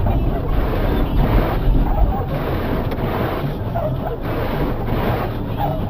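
Blizzard wind gusting across the microphone as a steady rushing noise with a heavy low rumble that eases off about two seconds in.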